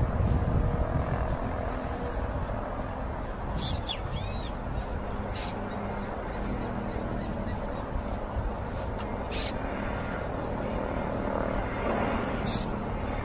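Short SC.7 Skyvan's twin turboprop engines running as it flies in low on approach, a steady drone.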